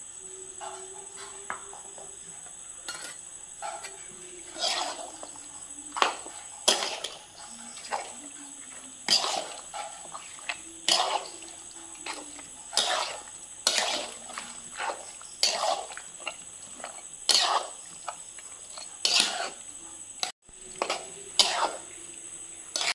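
Metal spatula scraping and knocking against an iron wok while mixing raw pork pieces with ground spice paste, in strokes about once a second.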